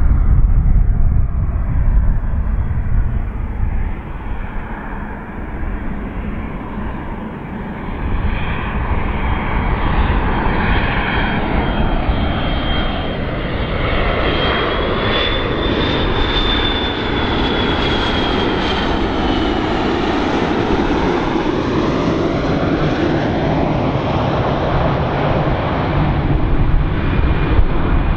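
Large airplane passing close by as it comes in to land: a loud, continuous engine rush with a deep rumble underneath and a thin high whine that rises a little around the middle and then falls away as it goes past.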